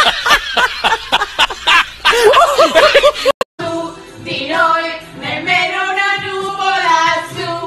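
High-pitched cackling laughter, a fast ha-ha-ha that cuts off suddenly a little over three seconds in. After a brief gap, a song with sung, long-held notes over music.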